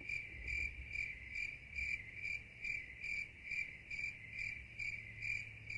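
Insects chirping: a high trill that pulses about three times a second, with short higher chirps falling between the pulses.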